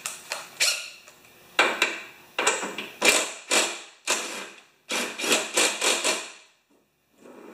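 Ratchet wrench driving a socket on an extension onto a lawn mower's wheel bolt: a series of short ratcheting clicks and clanks, about ten strokes, stopping about a second before the end.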